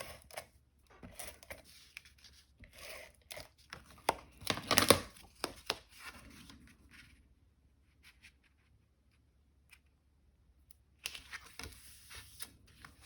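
Paper and cardstock being handled on a craft table: rustling, scraping and short tearing sounds, loudest about four to five seconds in. They stop for a few seconds, then the rustling starts again near the end.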